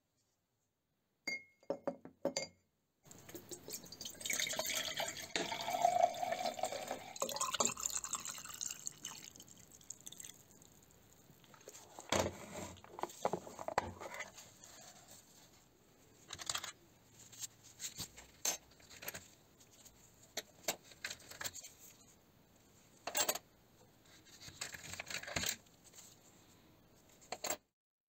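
Liquid poured into a glass jar for several seconds, its pitch rising as the jar fills. Then scattered clicks and taps as a plastic compartment box is opened and small items are handled.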